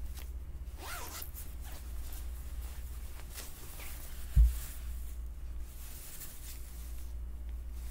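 Rustling of a quilted Patagonia jacket as it is lifted from the box and unfolded, the fabric and zipper swishing. A single dull bump comes about halfway.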